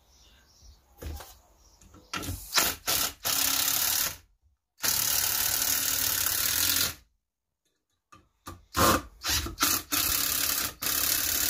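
Makita cordless impact driver driving 90 mm screws into pine: a few short trigger bursts about two seconds in, then longer steady runs. The driver stops for about a second, then starts again with more short bursts and a steady run to the end.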